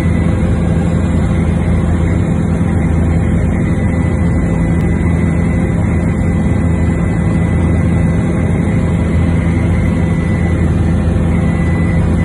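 Helicopter in flight: a loud, steady drone of engine and rotor with a constant whine over it.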